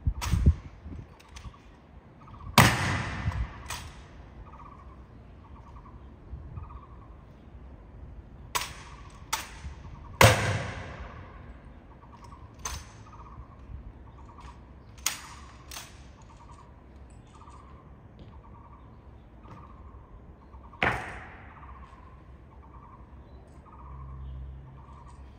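Honor guard drill: about ten sharp, separate cracks and stamps of rifles and boots striking the ground, spaced unevenly, the loudest about ten seconds in with a short ring after it. A bird calls faintly over and over, about once a second.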